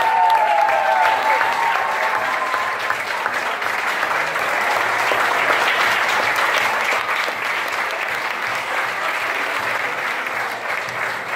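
Audience applauding steadily. A few voices call out over the clapping in the first couple of seconds.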